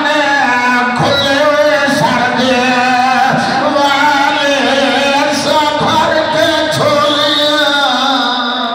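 A male zakir's melodic, chanted recitation into a microphone: long held notes that waver in pitch, sung rather than spoken.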